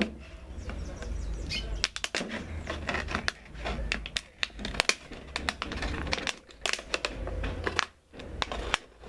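Thin plastic water bottle crinkling and crackling in the hands as a sharp knife cuts around it, in many irregular sharp crackles.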